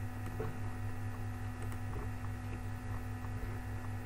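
Steady electrical hum from the recording setup, with a few faint clicks of a computer mouse.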